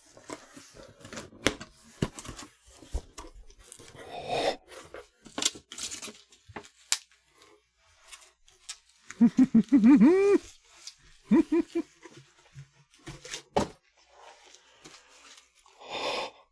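Cardboard shipping box being opened: packing tape tearing, cardboard flaps scraping and bubble wrap crinkling, in irregular crackles and rustles. About nine seconds in, a man's brief wordless humming, wavering in pitch, with a shorter hum a moment later.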